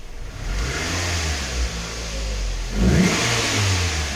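2008 Scion xB's 2.4-litre four-cylinder engine revved twice while sitting in Park. The first rev comes about half a second in, and a sharper, louder one follows about three seconds in.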